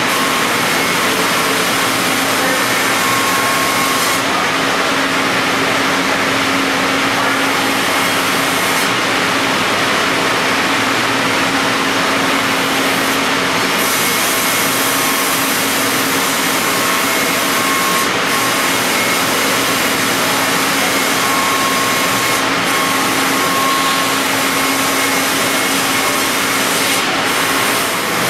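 C.R. Onsrud F98HM25 5-axis CNC router's spindle and cutter machining a block of Ren foam tooling board. The sound is a loud, steady rushing noise with a constant low hum and a faint higher tone that comes and goes.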